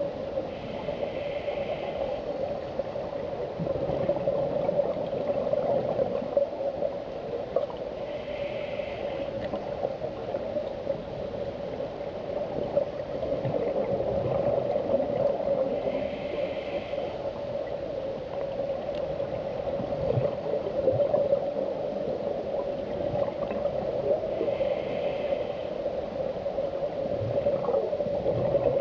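Muffled underwater sound, picked up through a camera housing: a steady dull hum with some gurgling. About every eight seconds, four times, comes a short hiss of the diver's scuba regulator, once per breath.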